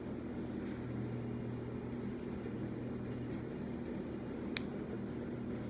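Steady low machine hum with one short sharp click about four and a half seconds in.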